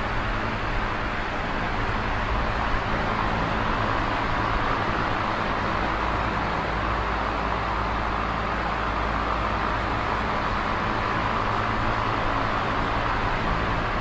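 Electric fan running steadily: an even rush of air with a low motor hum underneath.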